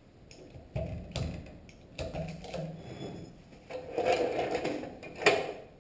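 Metal knocks and clanks from working a jack and heavy metal parts under a lathe: several separate sharp knocks with scraping between them, the loudest about five seconds in.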